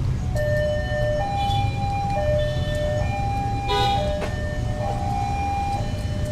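Two-tone hi-lo siren, switching between a lower and a higher note about once a second, over a steady low rumble. A brief clatter comes about four seconds in.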